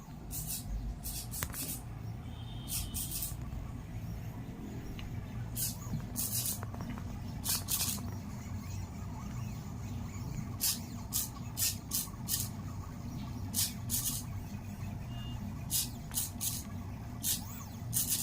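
Pen plotter's NEMA 17 stepper motors running as the machine draws: a steady low hum, broken by short high-pitched bursts at irregular intervals as the carriage moves.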